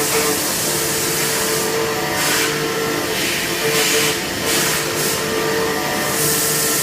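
CNC machine cutting metal: a steady whining tone over a low hum, with bursts of hiss that start and stop every second or so.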